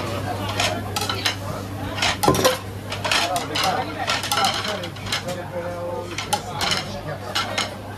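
White ceramic plates being set down one after another on a counter, clinking sharply many times, over a steady low hum.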